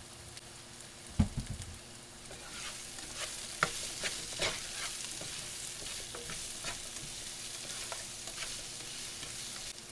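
Squash, onions and jalapeño frying in olive oil in a skillet, sizzling steadily while being stirred, with short clicks and scrapes of the utensil against the pan. A dull knock comes about a second in, and the sizzle grows louder after that.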